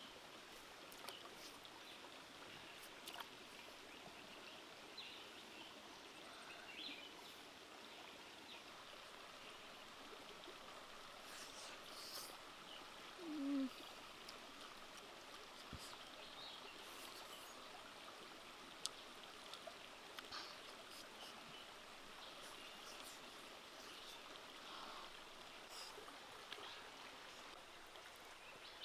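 Faint, steady rushing of a shallow stream running over rocks, with scattered small clicks and chirps and one brief louder low sound about halfway through.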